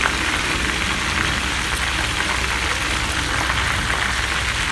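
Titus and croaker fish frying in hot oil: a steady sizzle with scattered small crackles and pops.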